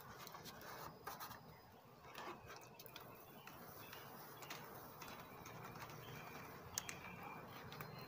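Light, scattered clicks and knocks of wooden beehive boxes and covers being handled, with a faint hum of honey bees that grows a little near the end.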